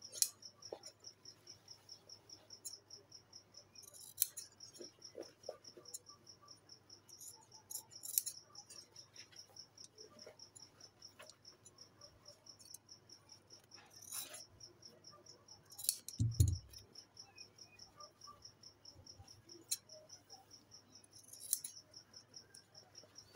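Scissors snipping through cotton fabric, trimming close along a seam: a scattering of sharp clicks every few seconds. Under it a cricket chirps steadily in a fast, high-pitched trill, and a low thump comes about two-thirds of the way in.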